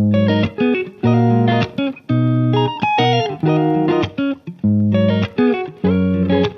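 Background music: plucked guitar notes over a bass line, in short phrases.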